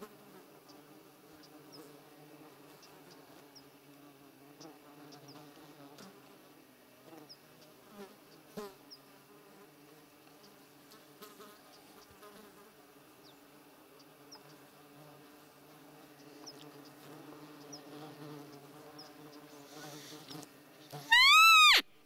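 Insects buzzing steadily around the microphone. Near the end comes one loud whistled peep whose pitch rises then falls: a roe deer call blown to lure a buck during the rut.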